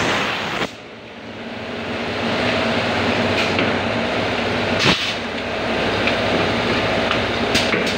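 Twin-head extrusion blow moulding machine making small HDPE bottles, running with a steady hum and sharp knocks as the mould works, one right at the start and another about five seconds in. The noise drops suddenly under a second in and builds back up over the next couple of seconds.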